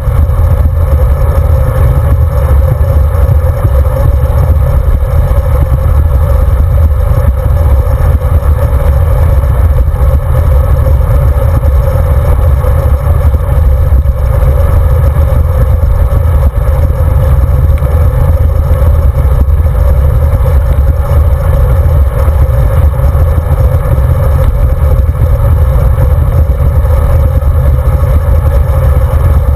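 Steady wind buffeting and tyre rumble on asphalt, picked up by a handlebar-mounted camera on a road bike riding along. A loud, unbroken low rush with no separate events.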